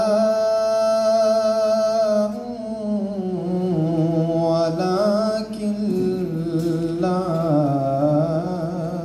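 A man reciting the Quran in melodic chanted style (tajweed), holding one long steady note for about two seconds, then moving into an ornamented phrase that rises and falls.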